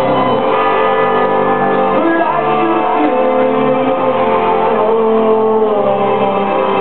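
Live synth-rock band playing, recorded from the crowd: steady, loud sustained chords with guitar, filling a large hall.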